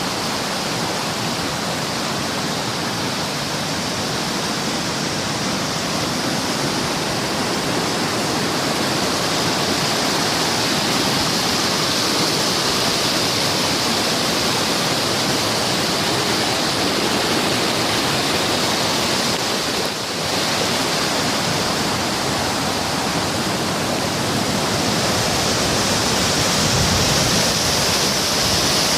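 Steady rush of flowing water, with a brief dip in level about two-thirds of the way through.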